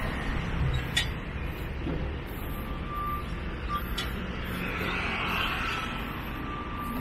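A heavy engine running with a steady low rumble, with an electronic warning beep sounding in short repeated tones and two sharp clicks, about one and four seconds in.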